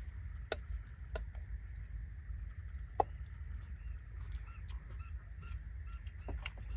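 A few separate sharp clinks of metal tongs against a metal cooking pot as food is served, over a steady low hum. Faint short animal calls come and go in the background, mostly in the second half.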